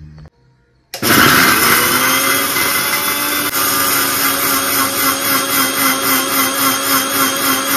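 Electric mixer grinder switched on about a second in, its motor spinning up with a rising whine and then running steadily with an even pulsing, dry-grinding roasted Byadgi red chillies to powder in a stainless steel jar.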